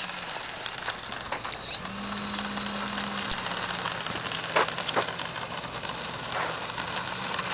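Electric motor and propeller of a small homemade RC plane running steadily as it taxis over dirt, a buzzing hum with fine clicking.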